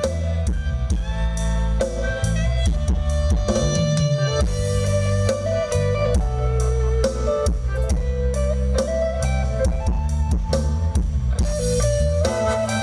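Instrumental interlude of a live Thai band song played loud through a sound-truck PA: drum kit and heavy bass keep a steady beat under a melodic lead, with no singing.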